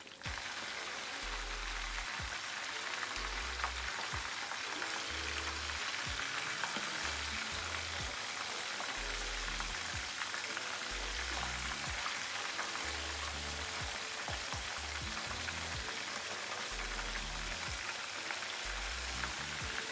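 Tilapia pieces shallow-frying in hot vegetable oil in a pan, a steady sizzle.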